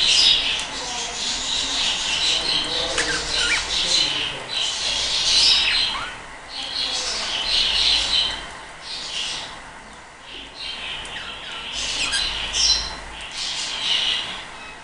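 A flock of budgerigars chattering and chirping together, in bursts that swell and fade.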